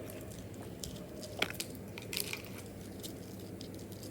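A fidget bracelet being worked in the hands, giving scattered small clicks and crunches, the sharpest about a second and a half in, over a steady low background hum.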